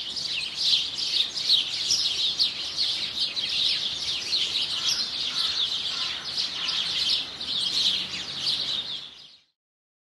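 Songbirds chirping and twittering, many quick high chirps overlapping in a busy chorus, fading out near the end.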